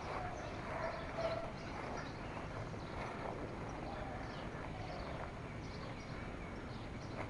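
Birds chirping faintly in short calls over a steady outdoor background hiss.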